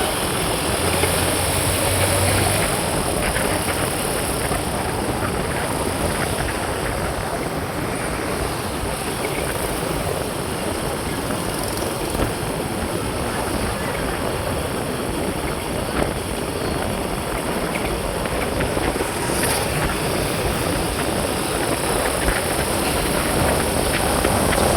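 A moving vehicle: its engine running with steady road and wind noise.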